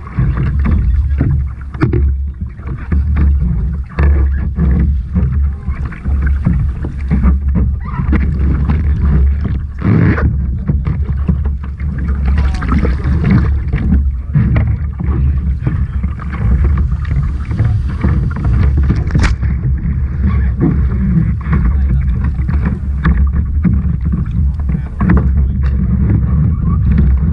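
Sea water slapping and sloshing against a surf kayak's plastic hull in choppy water, in many irregular splashes over a heavy, steady low buffeting on the microphone.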